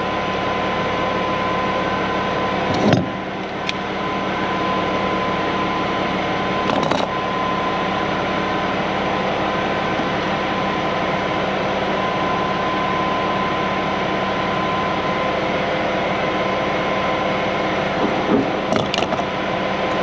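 Steady machine hum with a constant whine, broken by a few sharp clicks and knocks, about 3 and 7 seconds in and again near the end, as the charging fitting is handled on the concrete pump's hydraulic accumulator bottle.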